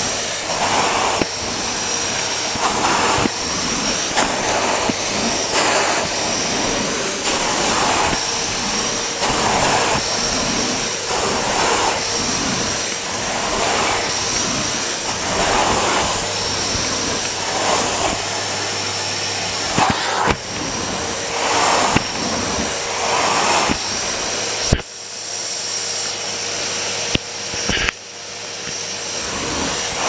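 Vacuum cleaner motor running with its floor head pushed back and forth over carpet and hard floor, the suction sound swelling and easing about once a second with each stroke. Two sharp clicks come near the end.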